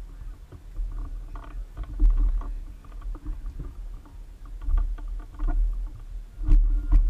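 Wind gusting across a microphone mounted on a hang glider's wing, in uneven low rumbles that swell and fade, with two sharp knocks near the end.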